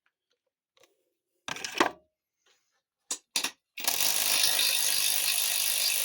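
A few light knocks of a tool and socket going onto a bolt, then about four seconds in a power wrench starts and runs steadily, working a bolt inside a TH400 transmission case.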